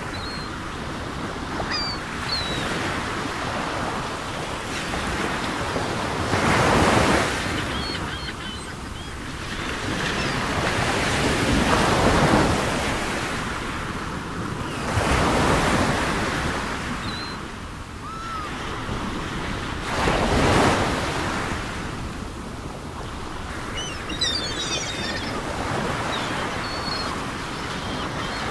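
Underwater water noise: a steady rush that swells loudly about every four to five seconds, with faint high chirps and crackles over it.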